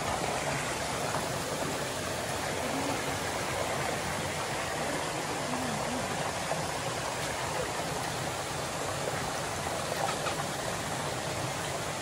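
A river flowing: a steady, even rush of water.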